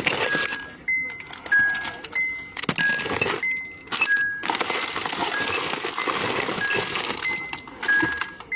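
Phone microphone rubbing and scraping against clothing, with rustling and knocks. Behind it, a two-tone electronic warning chime, a higher beep then a lower one, repeats about once a second.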